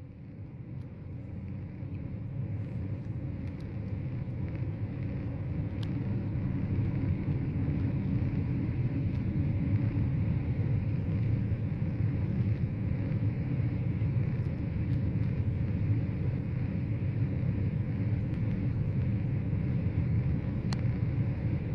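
Road and engine noise of a moving car heard from inside the cabin: a steady low rumble that fades in over the first several seconds.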